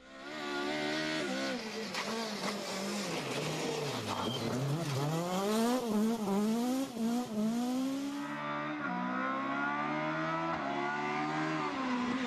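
Rally cars driven flat out on a special stage, engines revving high, with the pitch climbing and dropping sharply through gear changes and lifts as they pass. About eight seconds in the sound changes abruptly to another car.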